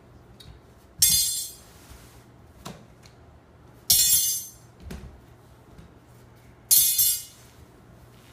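Bent metal leg tubes of a Byer TriLite cot clinking together as they are set down on a pile, three times roughly three seconds apart, each clink ringing briefly. Softer knocks of handling come in between.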